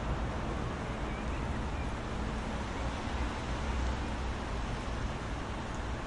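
Steady soft rain: an even hiss with a low rumble underneath.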